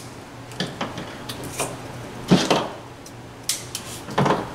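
Scissors and a steel fishing hook being handled and set down on a tabletop: a handful of light knocks and clicks, the loudest a little over two seconds in and another near the end.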